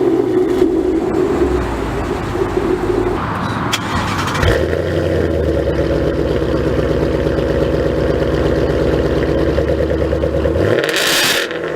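Supercar engine running at a steady note, switching to a different steady note about four seconds in; the engine sound drops away shortly before the end and a brief rush of noise follows.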